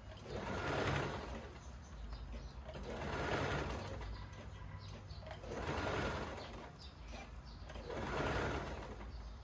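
Singer M1505 sewing machine stitching in short runs, a swell of machine noise about every two and a half seconds over a steady low hum.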